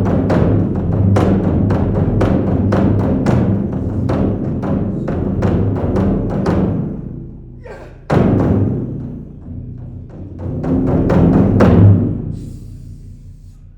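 Drums beaten in fast, rolling strikes. The roll fades away, starts again suddenly and loudly about eight seconds in, swells to a peak near twelve seconds, then dies away.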